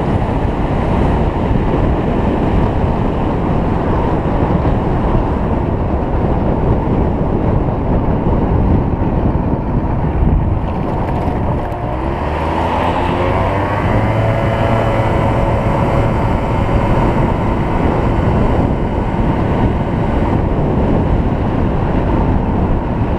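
Wind buffeting the microphone over a Yamaha BW's scooter riding along a country road. About twelve seconds in, the engine note climbs in pitch as the throttle is opened, then holds steady.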